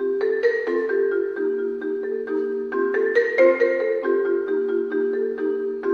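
Concert marimba played with four yarn mallets: a steady stream of struck, ringing notes and chords in the middle register, coming in loud at the very start.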